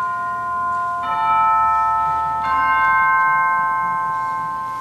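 Altar chimes (Sanctus bells) struck three times, about a second and a half apart. Each stroke is a chord of clear tones that rings on and slowly fades. They mark the elevation of the host at the consecration of the Mass.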